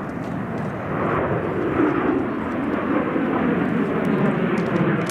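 An aircraft passing at an air show, a loud rushing engine noise that swells over the first second and then holds steady.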